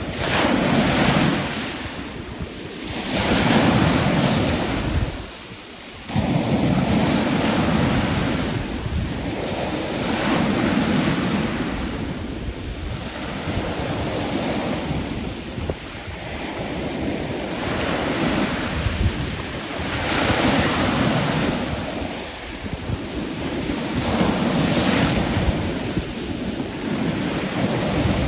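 Sea waves surging and washing back, the noise rising and falling every three to five seconds, with a brief lull about five seconds in. Wind buffets the microphone underneath.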